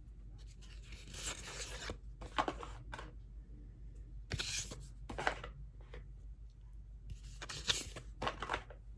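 Oracle cards being handled and slid over one another as the deck is looked through: a string of short dry rustling and scraping strokes, one longer one about a second in and a cluster near the end.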